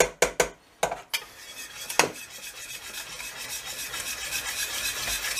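Metal spoon stirring thick flour-and-yogurt batter in a stainless steel pot. A few sharp knocks of metal on the pot come in the first two seconds, then a steady scraping stir that slowly grows louder.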